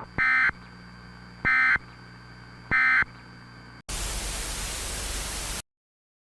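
Three short bursts of Emergency Alert System SAME digital data tones, about a second and a quarter apart: the end-of-message signal that closes an alert. They are followed by a loud burst of static that cuts off suddenly into silence.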